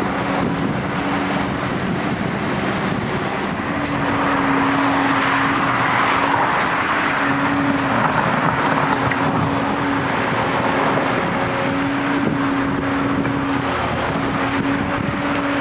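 Wheeled excavator's diesel engine and hydraulics working steadily during loading, with a short sharp click about four seconds in.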